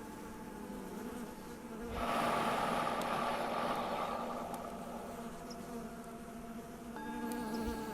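Bees buzzing, the buzz swelling louder for a few seconds about two seconds in. Steady ringing tones of a Tibetan singing bowl sound at first and start again near the end.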